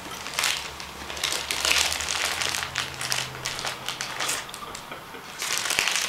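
Plastic candy bag crinkling and crackling in irregular bursts as someone rummages in it, struggling to get jellybeans out.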